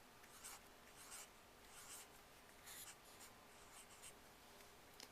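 Faint scratching of handwriting, a few short strokes spread through the pause, over quiet room hiss.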